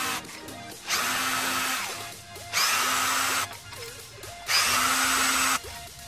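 Drill with a 13 mm socket spinning bolts out of the bottom cover of a Briggs & Stratton riding mower engine, the bolts already loosened by hand. It runs in three steady bursts of about a second each, with short pauses between.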